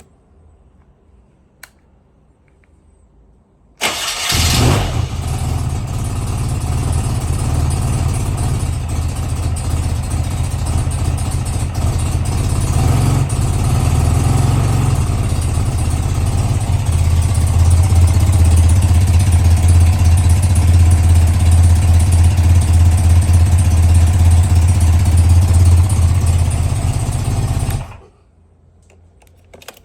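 BMW R100 GS PD's air-cooled boxer twin starting about four seconds in, then idling steadily and loudly before being switched off and cutting out abruptly near the end.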